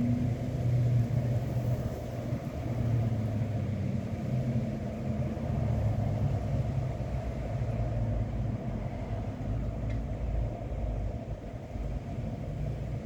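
Wind gusting across the microphone: a low, rumbling buffet that swells and eases in gusts.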